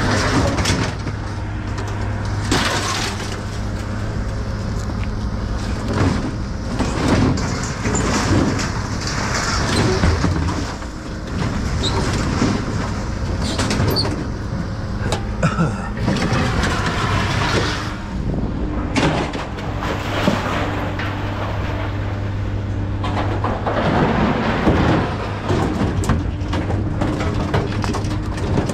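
A tall sheet-metal cabinet scraping and sliding across a steel pickup bed, with repeated knocks and clanks as it is shoved toward the tailgate. A steady low hum runs beneath it and weakens near the end.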